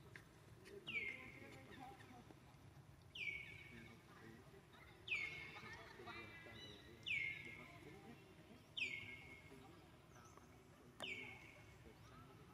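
A bird calling over and over: six short whistles, each sliding quickly down in pitch, about every two seconds, over a faint low murmur.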